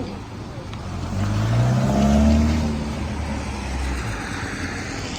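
A motor vehicle passing close by on the street, its engine note rising as it speeds up, loudest about two seconds in and then fading away.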